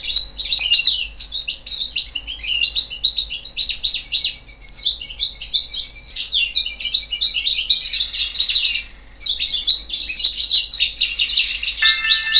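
A small bird chirping and twittering in quick, dense runs, loud and close to the microphone, with a short pause a little before the nine-second mark.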